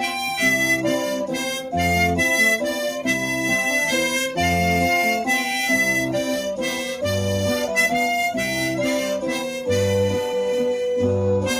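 Harmonica playing a melody over acoustic guitar accompaniment, with low bass notes recurring every second or so.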